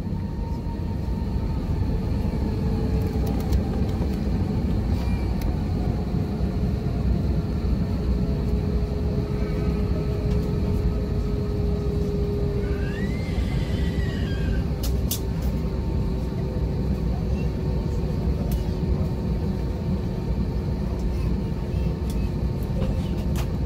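Airbus A320 cabin noise while taxiing: the steady low rumble of the jet engines near idle, with a whine that slowly falls in pitch. A couple of sharp clicks come about fifteen seconds in.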